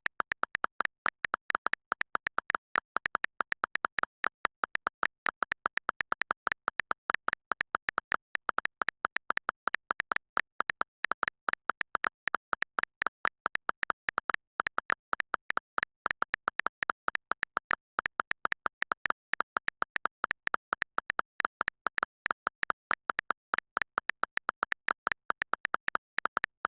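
A rapid, slightly uneven train of short high-pitched beeps, about five or six a second, with silence between them.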